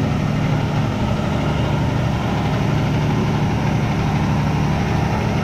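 Heavy diesel engine of a truck-mounted crane idling steadily, a low even hum.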